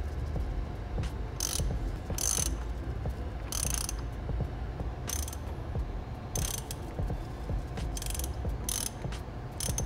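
Ratchet wrench with a socket tightening the AN fittings and plugs on an oil cooler sandwich adapter. There are about seven short runs of pawl clicking at uneven intervals, one for each back-swing of the handle.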